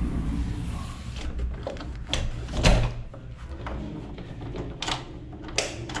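A door being handled: several sharp clicks and knocks, with one heavier thud about two and a half seconds in.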